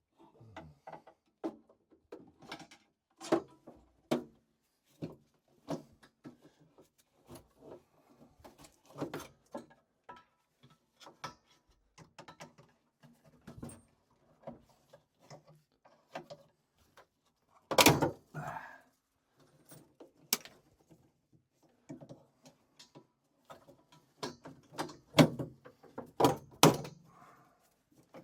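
Irregular clicks, knocks and scrapes of hands and a screwdriver working a broken plastic condensate sump out of an Ideal Logic combi boiler. There is a louder clatter past the middle and a run of sharp knocks near the end.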